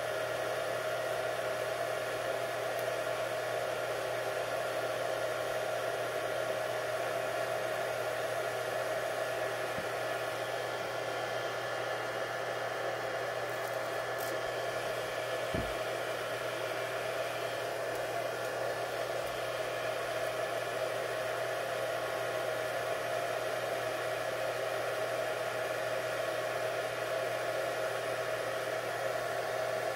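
Steady whirring hum of a small electric motor that holds one constant mid-pitched tone. A soft knock comes about halfway through.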